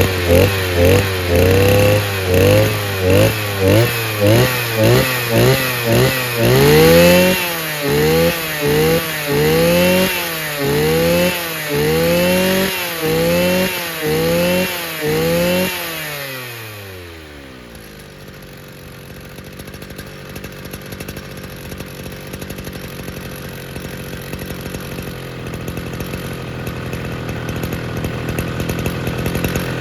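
Mitsubishi T200 two-stroke brush cutter engine, fitted with a diaphragm carburettor and bottom tank, revved in repeated throttle blips, about two a second and then about one a second. Just past halfway the revs fall away and it settles to a quieter idle.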